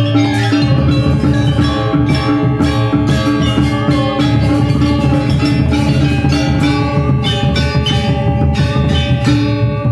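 Balinese gamelan orchestra playing: bronze metallophones ringing over a kendang drum part, with bamboo suling flutes. The low drum and gong part thickens about half a second in and keeps up a steady rhythm.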